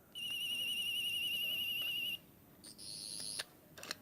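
Toy sonic screwdriver's electronic sound effect: a high warbling tone for about two seconds, then a shorter, higher buzz, with a few button clicks near the end.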